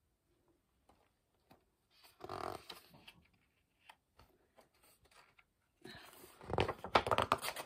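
Pages of a hardcover picture book being turned by hand: a brief paper rustle about two seconds in, then a longer, louder rustling and flapping of pages from about six seconds in.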